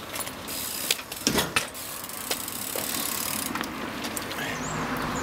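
A bicycle rolling over paving slabs: a steady rumble of tyres on the pavement, with a few sharp mechanical clicks.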